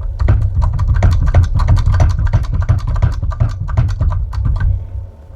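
Hand crimping tool being worked on a battery cable lug: a rapid, irregular run of sharp metallic clicks and knocks with heavy low handling thumps as the dies close the lug a bit at a time.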